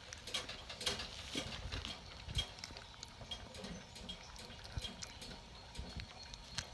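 A litter of young Rottweiler puppies stirring in a heap: soft grunts and faint little squeaks among scattered light bumps and rustling.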